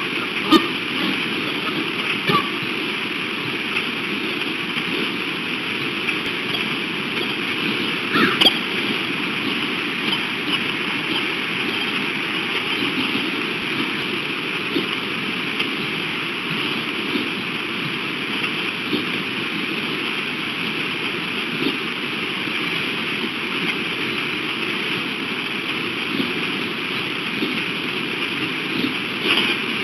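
Steady rushing and gurgling of flowing stream water, even throughout. A few brief, sharper sounds stand out over it: about half a second in, about two seconds in, and a louder pair around eight seconds in.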